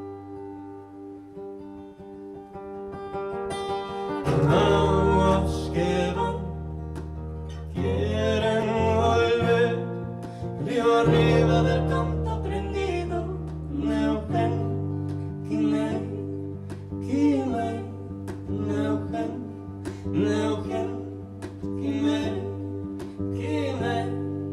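Live acoustic cover of an Argentine folk song: a woman singing over acoustic guitar. The guitar is heard alone for the first few seconds, and the voice comes in about four seconds in.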